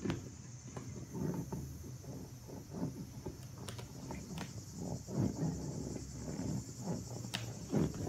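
A soft vinyl play ball being slowly squashed and deflated under a bare foot on a wooden floor: irregular soft creaks and rubbing of the flexing vinyl, with a few sharp clicks, over a steady high hiss.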